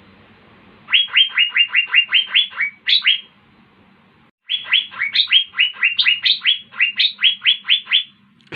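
Asian fairy-bluebird (cucak biru) singing in full voice: two quick runs of sharp, repeated whistled notes, about six a second, with a pause of about a second between the runs.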